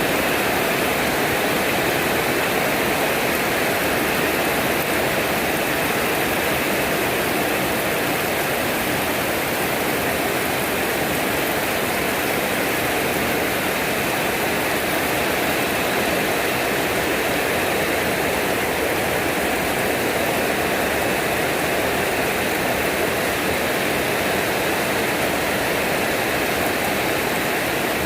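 Steady rain falling, an even continuous hiss of water.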